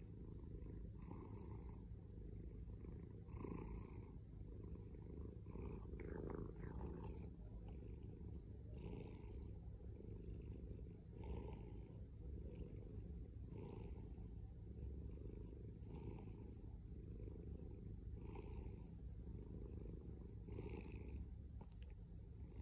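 Domestic cat purring steadily, a continuous low rumble that swells about every two seconds.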